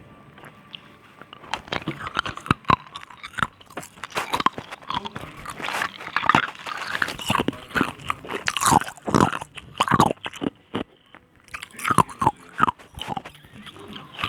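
Ice cubes being bitten and chewed, a dense run of irregular crisp crunches that starts about a second and a half in and breaks off briefly near three-quarters of the way through.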